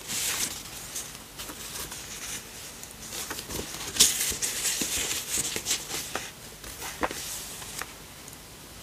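Paper rustling as the layered pages and tucked-in cards of a handmade junk journal are lifted and a page is turned. The rustles are loudest just after the start and about four seconds in, with small taps and clicks of paper in between.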